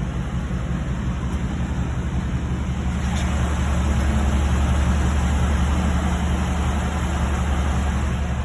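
2013 Ford F-150's 5.0 V8 engine running with a steady low hum that gets slightly louder midway.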